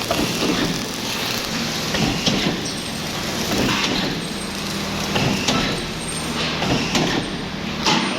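Electric arc welding on a pipe: a continuous crackling hiss with occasional sharp pops, over a steady low hum.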